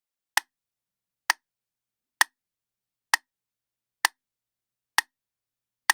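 Seven sharp, dry ticks, evenly spaced at a little under one a second, with dead silence between them, like a slow clock tick or measured tapping.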